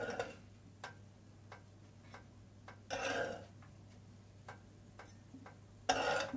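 Metal spatula scraping across a nonstick griddle as pancakes are slid off it: three short scrapes, one at the start, one about three seconds in and one near the end. Under them a faint, regular ticking about every two-thirds of a second.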